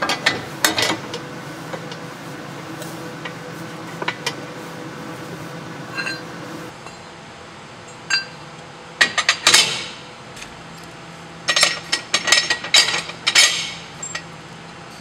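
Steel clamping brackets clinking and scraping against the steel frame of a trailer mover as they are slid into place by hand. A few light clinks come near the start, then clusters of sharper metal clinks in the second half.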